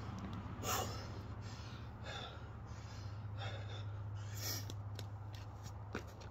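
A man breathing hard from exercise: about four sharp, noisy breaths, roughly one every second or so, over a steady low hum.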